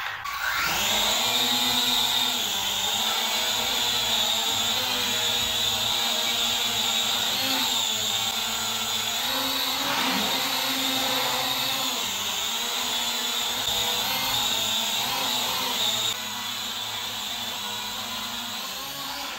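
Small foldable quadcopter drone's motors and propellers spinning up with a rising whine in the first second, then a steady high-pitched whine while it flies, slightly quieter near the end.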